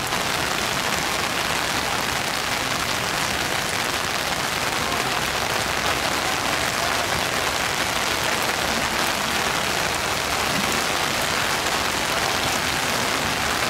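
Pouring rain falling steadily: an even, unbroken hiss.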